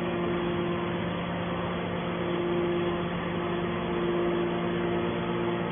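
Hydraulic metal baler running: a steady machine hum with a higher whine that swells and fades every second or so.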